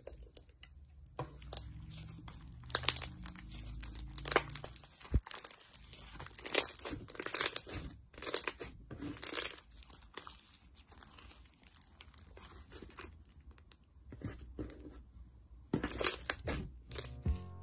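Hands stretching, pulling apart and squeezing a thick, grainy textured slime, giving irregular bursts of sticky crackling and tearing. The loudest burst comes near the end as the slime is pressed between both palms.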